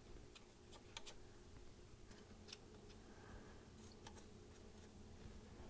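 Faint, scattered light clicks of a hand tool and metal bolts being worked loose on an e-bike frame, otherwise near silence.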